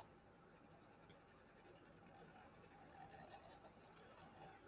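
Faint scratching of a Sharpie marker tip drawn slowly across drawing paper, in small uneven strokes.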